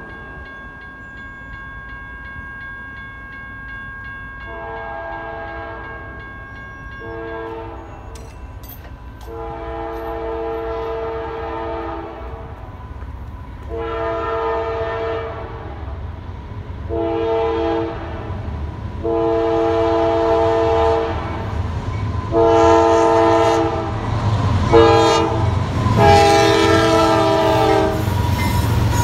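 Railroad crossing bell ringing as the gates lower, then a BNSF diesel locomotive's multi-tone air horn sounding a long series of blasts for the crossing, each louder as the train approaches. Near the end the horn's pitch bends down as the locomotive reaches the crossing, with the low rumble of the engine and wheels building.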